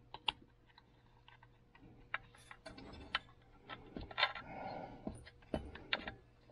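Light, irregular clicks and taps of a metal dentist pick and rope against a snowmobile recoil starter's pulley and metal housing, with soft rope rustling in the middle, as the pick is worked into the rope end to feed it through the pulley hole.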